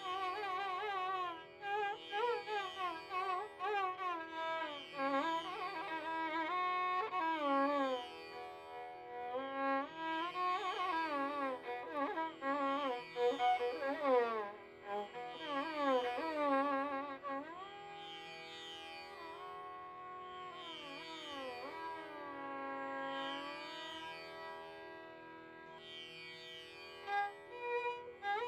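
Carnatic violin music: a melody of sliding, ornamented notes over a steady drone. About two-thirds of the way through it turns quieter, into longer gliding notes.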